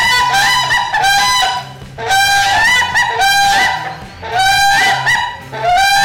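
Waterfowl calling: quick runs of loud calls, several a second, in bouts about two seconds apart.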